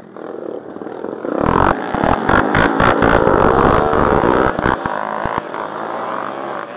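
Dirt bike engines revving hard as enduro riders pull away from the start, the nearest bike close to the microphone. The sound grows louder over the first second and a half, stays loud with irregular low thumps for a few seconds, then eases off a little.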